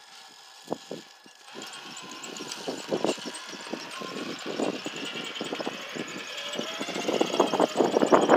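RC scale rock crawler working over sandstone: a faint electric motor whine with irregular clicks, scrapes and knocks of tires and chassis on the rock, starting about a second and a half in and growing louder and busier toward the end.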